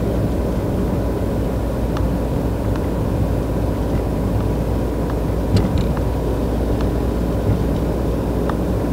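A motor vehicle's engine running steadily with a low rumble, with a faint steady whine and a few light ticks over it.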